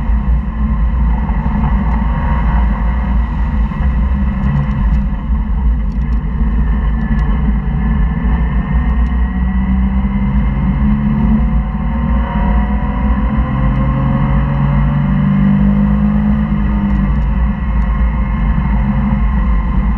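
Porsche flat-six engine heard from inside the cabin at speed on a track, revs climbing and falling with acceleration and gear changes, over steady wind and tyre noise.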